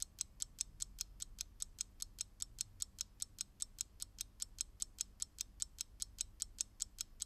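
Fast, even clock-style ticking, about five sharp ticks a second: a countdown sound effect that times the pause for thinking of the answer.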